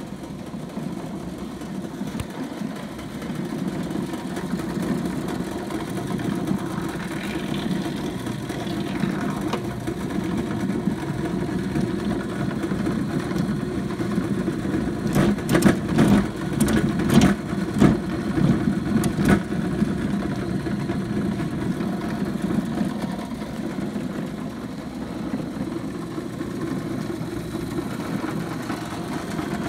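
Fleetwood 500MT2 drill press's 115 V motor running steadily, spinning an empty chuck with no load. About halfway through, a short cluster of sharp clicks and knocks is the loudest sound.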